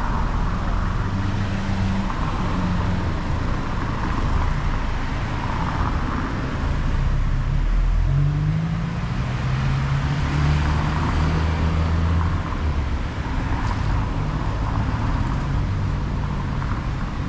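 City street traffic: motor vehicle engines running and passing, with an engine note rising about eight seconds in over a steady wash of road noise.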